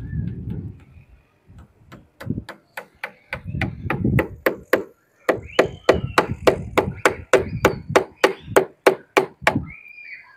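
Hand hammer striking the concrete roof parapet again and again, a quick, even run of blows at about three a second that starts about two seconds in and stops shortly before the end.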